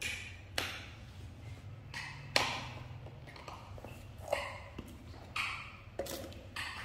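Small cardboard milk cartons being handled on a cardboard box: a handful of light, scattered taps and knocks, about one every second or so.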